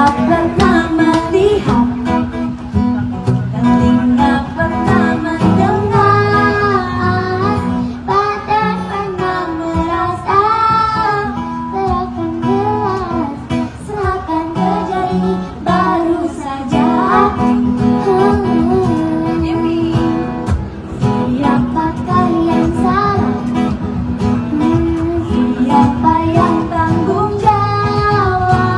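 Acoustic guitar strummed as accompaniment while a woman and a young girl sing a song together into microphones.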